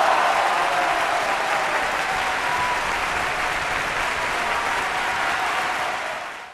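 Crowd applauding steadily, the clapping fading out at the very end.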